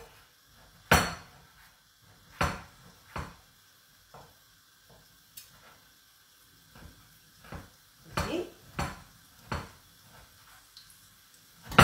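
Kitchen knife cutting guanciale on a wooden cutting board: sharp knocks at irregular intervals, several close together near the end, with fainter taps between.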